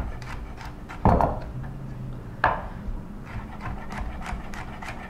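Knife chopping garlic on a wooden cutting board: a run of quick light taps, with two louder knocks, one about a second in and one about two and a half seconds in.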